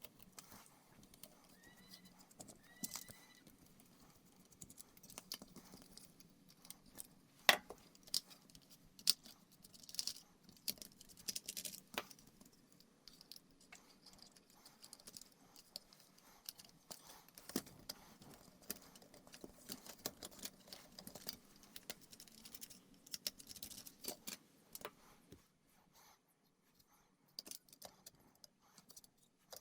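Faint, irregular clicks, taps and light rattles of small plastic toy-robot parts being handled and taken apart, with one sharper click about seven seconds in.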